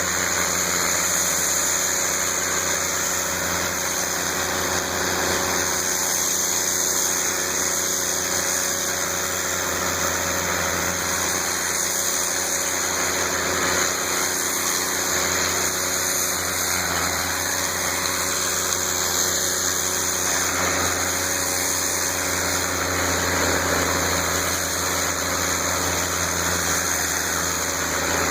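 Pressure washer's 9 hp Honda GX single-cylinder engine running steadily under load, with the steady hiss of the water jet from a turbo nozzle.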